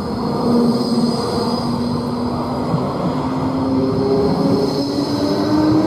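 Basel Be 6/8 Flexity low-floor tram passing close by, with the rumble of its wheels on the rails and a steady whine that climbs slowly in pitch.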